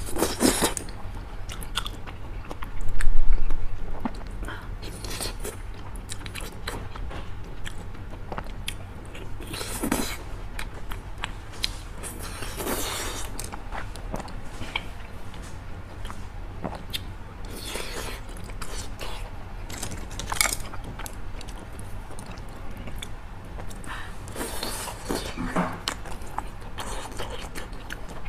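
A person biting and chewing grilled teriyaki chicken-skin skewers close to a clip-on microphone, in irregular wet, crunchy bursts, the loudest about three seconds in, over a steady low hum.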